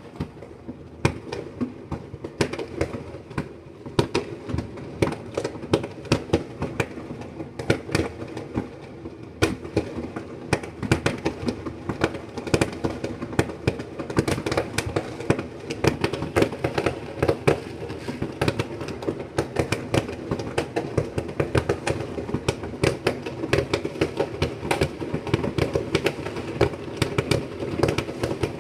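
New Year fireworks going off in a continuous rapid barrage of bangs and crackles over a steady background rumble, growing denser and sharper about nine seconds in.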